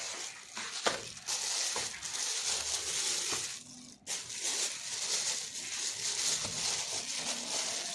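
Rummaging through a box of stored small parts and packaging: rustling with frequent small clinks and clicks of hard items knocking together.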